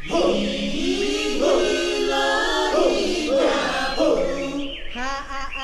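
A group of voices chanting together in a choir, without instruments. It breaks off near the end, and a single voice then begins to sing.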